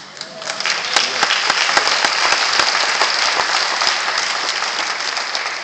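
Audience applauding. The clapping swells within the first second, holds steady and eases off slightly near the end.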